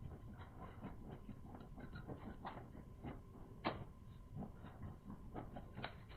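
Close-up mouth sounds of eating boiled sea snail meat: irregular wet chewing and lip-smacking clicks, with a slightly louder smack a little past halfway.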